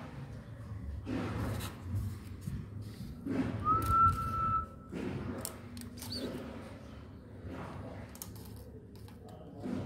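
Knocks and rustles of a flat stick being poked against and into a wire cage trap that holds a large rat, with one high whistle-like squeal of about a second in the middle, rising slightly and then holding steady.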